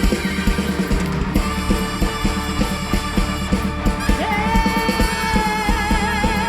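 A live dangdut band playing, with a busy drumbeat. From about four seconds in, a long note is held with vibrato.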